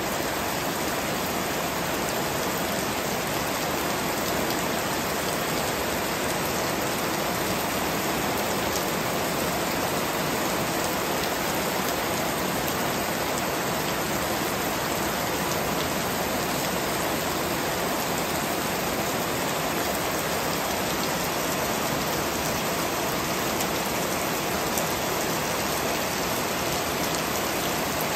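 Heavy rain falling steadily on banana plants and grass, an even, unbroken hiss.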